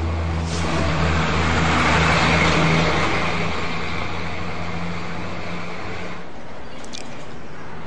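A road vehicle going by: a rush of engine and tyre noise swells and fades over the low, steady hum of its engine, which stops about six seconds in.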